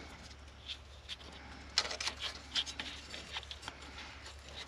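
Hands working the ABS sensor wire and its plastic retaining clips into place: scattered light clicks and rubbing, sharpest about two seconds in, over a steady low hum.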